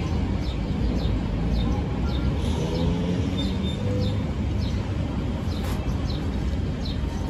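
Steady low background rumble, like distant traffic, with small birds giving short high chirps about twice a second. No welding arc is heard.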